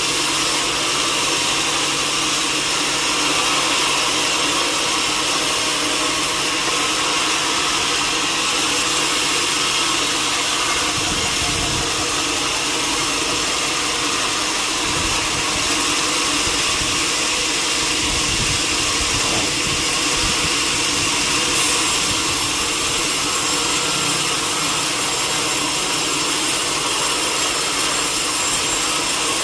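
Sawmill saw and machinery running steadily, a loud continuous mechanical whine and hiss with an uneven low rumble through the middle.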